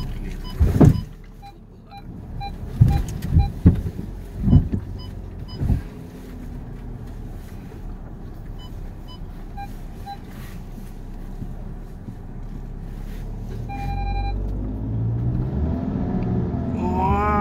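Volkswagen Tiguan working along a rough, muddy forest track. Several heavy knocks and jolts come in the first six seconds, with short repeated electronic beeps. Then the engine revs up, rising in pitch and growing louder near the end.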